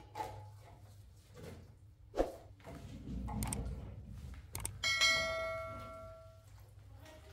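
Scattered knocks and thumps, then about five seconds in a metal object is struck once and rings out with a clear, bell-like tone that fades over a second or so.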